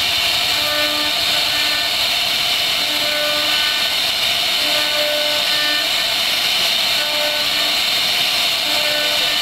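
CNC router spindle running at speed, its bit carving a relief into a wooden board: a steady high whine and hiss of cutting. Short humming tones come and go every second or so as the machine's axis motors move the head.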